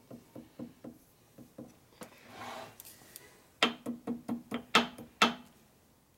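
Ball-peen hammer striking lead solder wire on a steel press block to flatten it. A few light taps come first, then a soft rustle, then a quick run of about eight sharper blows, each with a short metallic ring.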